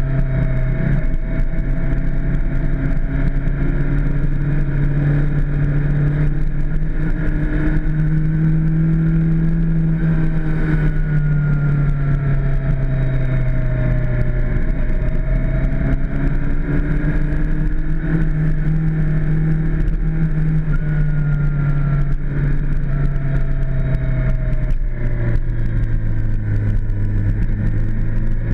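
Suzuki GSX-R600's inline-four engine running under way at moderate revs, heard from a camera mounted on the bike, its pitch rising and falling gently with the throttle, over a steady rush of wind.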